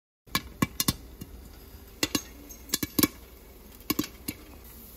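Homegrown popcorn kernels popping in a pan under a glass lid, about a dozen sharp, scattered pops over a steady low hiss. The batch is starting to burn, with many kernels still unpopped.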